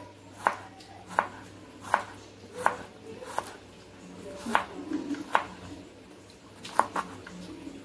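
Kitchen knife slicing garlic cloves on a plastic cutting board: single sharp knocks of the blade on the board, about one every three-quarters of a second.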